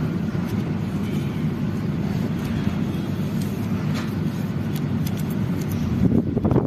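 Steady low hum of a motor running nearby, with a few faint crisp flicks of paper banknotes being counted by hand.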